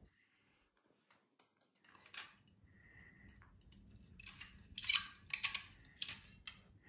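Two sections of a bed-canopy frame pole being screwed together by hand: a run of small clicks and scrapes from the threaded joint and the poles being handled, busiest and loudest in the second half.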